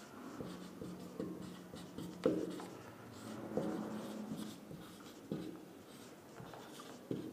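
Marker pen writing by hand on a white board: quiet, irregular scratching strokes with a few louder ticks.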